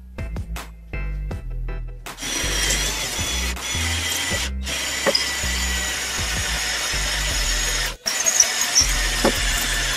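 Black & Decker 10.8 V cordless drill driver drilling into a masonry wall, its motor running steadily with a faint whine. It starts about two seconds in after a few sharp knocks, breaks off briefly twice and carries on.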